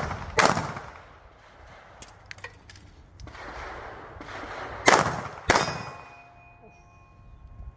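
Three pistol shots, one about half a second in and two in quick succession around five seconds, followed by a steel target ringing for about two seconds after the last shot.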